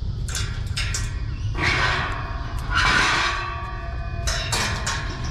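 Steel-bar gate being unlatched and pushed open: two sharp latch clicks, then about two seconds of metallic rattling with a squeak as the gate swings, and a quick run of clicks near the end as it clanks against its latch, over a steady low rumble.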